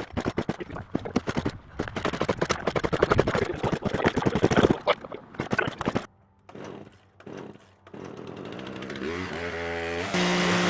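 Two-stroke chainsaw engine running in loud, rapid, uneven pulses for about five seconds, then falling away to a few weak bursts. Near the end it revs up with a rising pitch and settles into a steady run.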